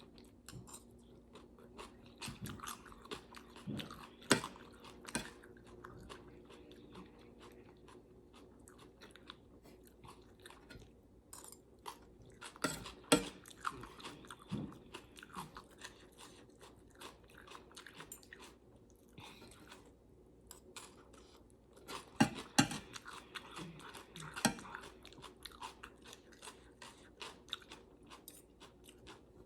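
A person chewing and biting close to the microphone, eating a spicy salad of chicken feet and shrimp, with wet crackling and crunching. Sharp, louder cracks come now and then, about four seconds in, around thirteen seconds and twice around twenty-two seconds.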